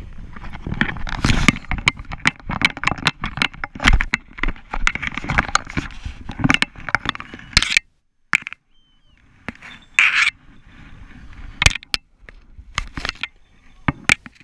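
Hurried footsteps on grassy ground, with clothing rustle and the knocking of a body-worn camera being jolted. About eight seconds in this breaks off abruptly and gives way to quieter rustling and a few sharp knocks as the person crouches to handle a hawk on its catch.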